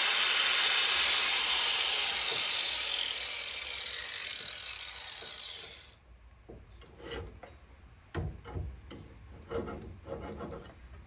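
A power tool runs with a loud, steady, hissing rush, then winds down and stops about six seconds in. After it come a few scattered knocks and scrapes.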